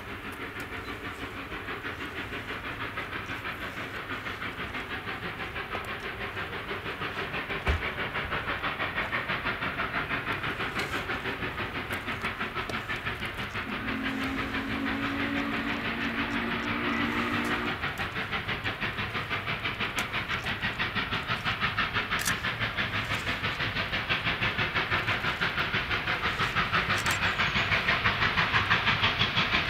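Norfolk & Western 611, a 4-8-4 J class steam locomotive, working hard on the approach: its exhaust chuffs in a fast, even beat that grows louder as it comes closer. Its whistle sounds one long blast about halfway through, and there is a single sharp thump about eight seconds in.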